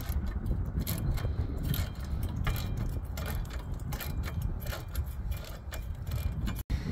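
Socket ratchet clicking repeatedly and unevenly as it is worked back and forth to loosen the 10 mm nut holding the car battery's hold-down bracket.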